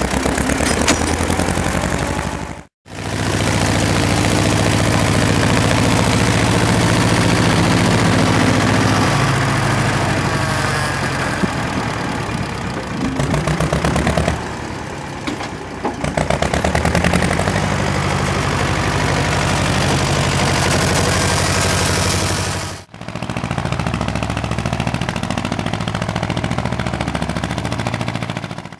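Ursus C-330 tractor's two-cylinder diesel engine chugging steadily under load while it pulls a plough through the soil. The sound drops out briefly twice, about three seconds in and near the end.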